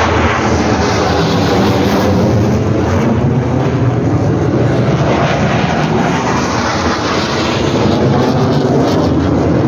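Loud, steady engine noise of a Sukhoi fighter jet flying a display pass overhead.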